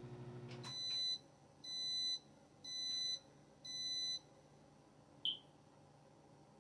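Countertop microwave oven finishing its cycle: its running hum cuts off with a click under a second in, then it beeps four times, each beep about half a second long, signalling that the heating is done. A brief high chirp follows about five seconds in.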